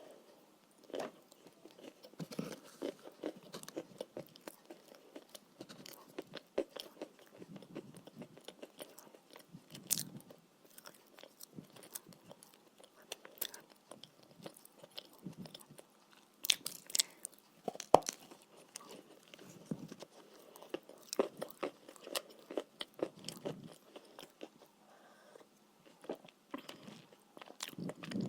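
Close-miked biting and chewing of chalk: irregular crisp crunches and snaps, with softer chewing between them.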